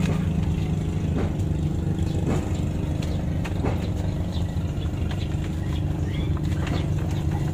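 A small engine running steadily at idle, a low, even hum, with a few light clicks about every second or so early on.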